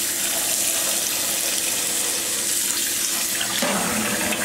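Kitchen faucet running steadily into a stainless steel sink, the stream splashing onto the wet fur of a capuchin monkey. A low tone comes in near the end.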